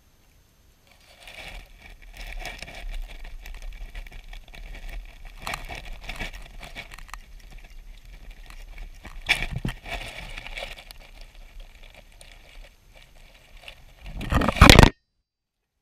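A hedgehog eating wet food from a metal bowl close to the microphone: a run of wet smacking and crackly chewing clicks. Near the end it bumps against the camera with a loud rustling knock, and the sound cuts off suddenly.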